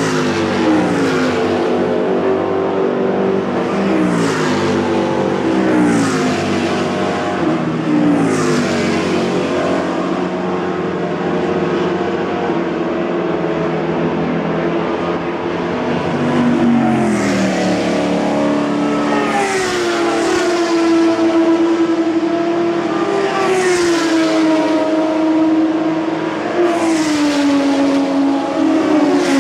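Grand-Am sports race cars passing one after another on a wet circuit at the restart. Each car's engine note falls in pitch as it goes by, about ten passes in all.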